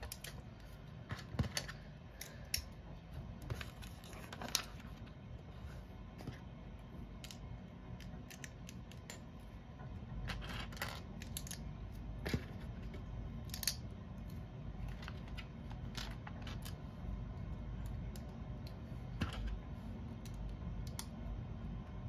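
Small plastic Lego bricks clicking and tapping irregularly as they are handled and pressed together, with a low hum underneath that comes up about halfway through.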